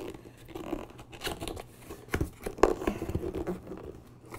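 Cardboard box being opened by hand: packing tape tearing and the flaps scraping and crinkling, with a few sharp clicks and knocks, the loudest a little after two seconds in.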